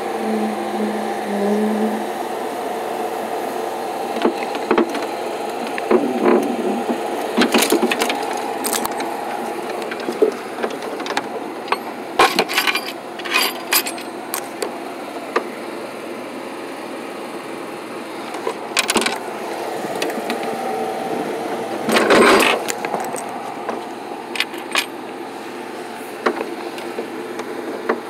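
Bucket truck's engine and hydraulic boom running with a steady hum as the aerial bucket is raised, with several sharp knocks and rattles, the loudest about three-quarters of the way through.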